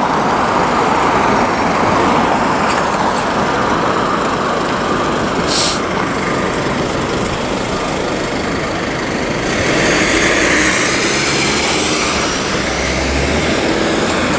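City street traffic dominated by a heavy vehicle such as a truck or bus running close by, with a brief hiss about five and a half seconds in and a swell in the noise about ten seconds in.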